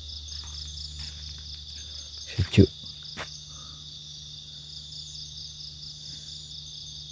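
Night insects chirping in a fast, even pulse over a steady high trill, with a steady low hum underneath.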